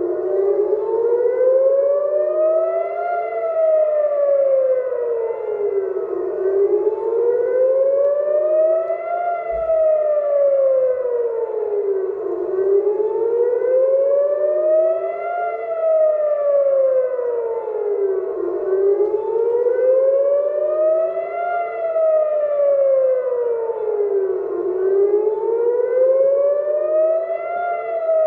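Civil defense air-raid siren wailing, its pitch rising and falling in a slow cycle of about six seconds: the rocket-attack warning.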